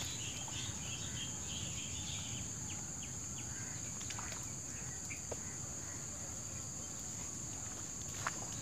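Insects buzzing in one steady, high-pitched drone, with a few short chirps in the first second and some faint clicks.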